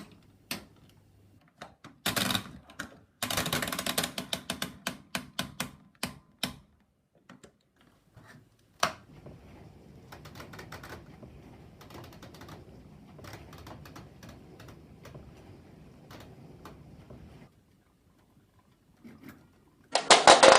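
Program selector dials of old washing machines being turned, clicking through the program positions in single clicks and quick runs of clicks. Later a low steady hum with light ticking for several seconds, and a loud sudden sound starts just before the end.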